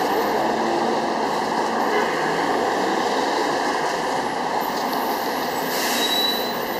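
Steady city traffic noise as a New Flyer C40LF CNG transit bus turns through the intersection, its engine running. A brief high hiss comes about six seconds in.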